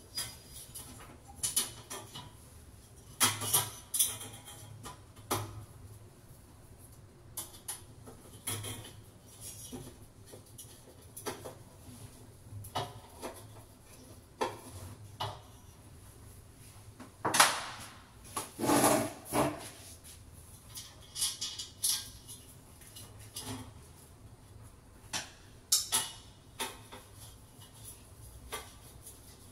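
Scattered metal clinks, taps and knocks of a window grill and its fittings being handled and fixed in place at the window, with a longer, louder run of rattling knocks about two-thirds of the way through.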